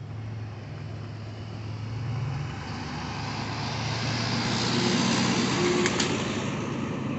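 A car driving on a road: a steady low engine hum under tyre and road noise that swells to a peak about five seconds in and then eases off.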